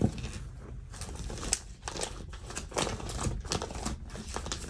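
Sticker sheets and paper crinkling, with a string of small clicks and rustles as stickers are peeled off their sheets and pressed down onto a planner page.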